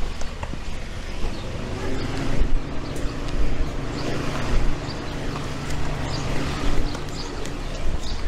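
A motor engine humming steadily, coming in about a second in and fading near the end, with light footsteps on pavement beneath it.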